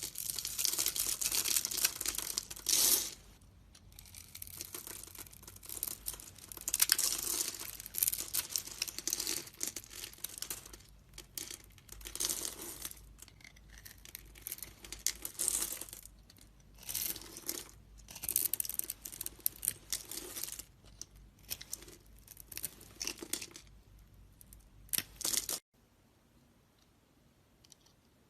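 Knife carving into a bar of soap: a run of scratchy cutting and scraping strokes, each half a second to two seconds long, with short gaps between. The strokes stop abruptly near the end.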